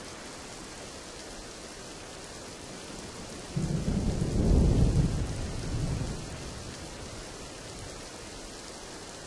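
Steady rain falling, with a roll of thunder that breaks in suddenly about three and a half seconds in, swells, and rumbles away over the next three seconds.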